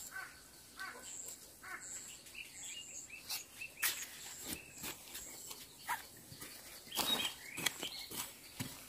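Dry, lumpy soil being scraped and pulled around a transplanted seedling by gloved hands and a small hooked hand hoe: scattered crumbly scrapes and soft knocks, a cluster of them about seven seconds in. A few short bird chirps in the background.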